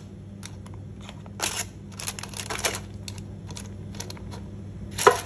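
Tongs clicking and scraping as meatballs are turned on baking paper in an air fryer basket: a series of short clicks and rustles, with a sharper knock about five seconds in, over a steady low hum.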